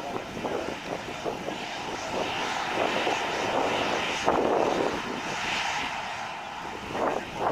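Boeing 737-800's CFM56-7B turbofan engines running at low thrust as the jet taxis, a steady jet whine and rush, with gusts of wind on the microphone now and then.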